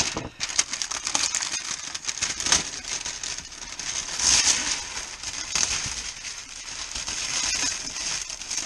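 Clear plastic wrap crinkling and crackling as it is pulled and peeled off a long cardboard box, with many sharp crackles and louder rustles a few seconds in.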